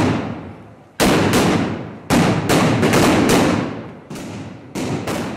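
Firecrackers going off in a street: about ten loud bangs in quick, irregular succession, each ringing out with an echo as it dies away. One bang, near the middle, is quieter than the rest.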